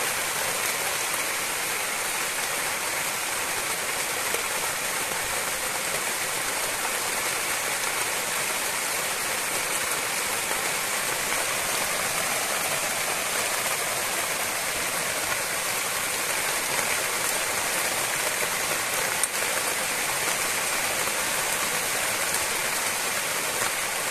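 Steady rushing noise of flowing water, even and unbroken throughout.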